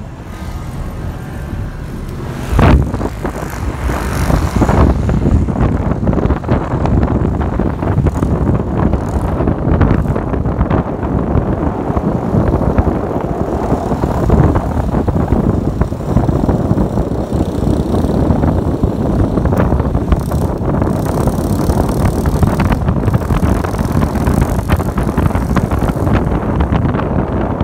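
Noise of a moving vehicle on the road, a dense rumble with wind buffeting the microphone. One sharp thump about two and a half seconds in.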